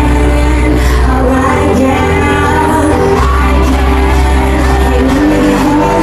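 Loud recorded pop song with female singing, played over a club's sound system, with a heavy bass line.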